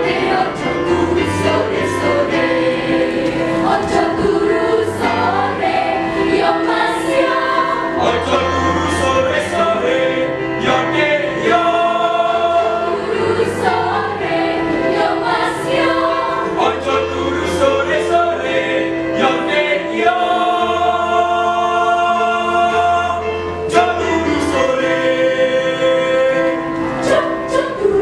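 A high-school choir singing in parts, with a low sustained bass line held under the upper voices.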